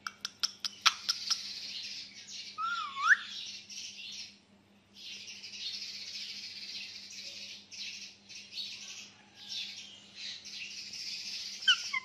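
Pet parakeets chattering in a long, scratchy warble that pauses briefly about four seconds in, opening with a quick run of sharp clicks and broken by a short whistled note about three seconds in.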